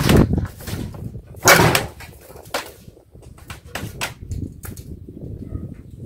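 Cord being pulled down and coiled by hand: a scraping rush at the start and a louder one about a second and a half in, then scattered light clicks and rubs.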